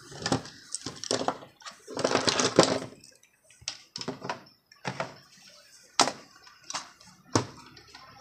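Handling noise: an irregular series of sharp clicks and knocks, with a longer rustle about two seconds in, as objects are picked up and moved about.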